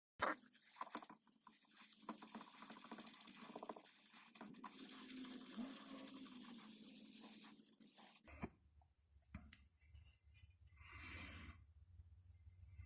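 Faint scratchy rubbing and scrubbing on the brass of an old paraffin blowlamp as it is cleaned. The rubbing stops abruptly after about eight seconds, and quieter scattered handling sounds follow over a low hum.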